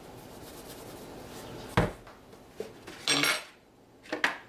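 Kitchen handling knocks: a salt container and glass baking dish clattering on a countertop. There is one sharp knock about two seconds in, then a short clatter and two quick light clicks near the end.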